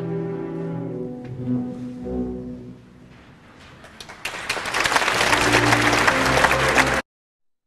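Orchestra playing ballet music with strings prominent. About four seconds in, audience applause swells over the music. A second before the end the sound cuts off abruptly to silence.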